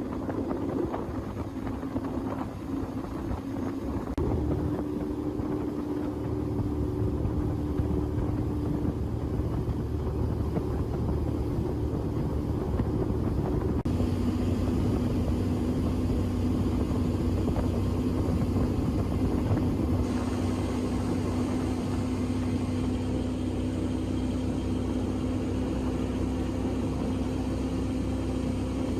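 Bass boat's outboard motor running steadily, just got going after the restoration. Its pitch steps up about four seconds in and settles lower about halfway through.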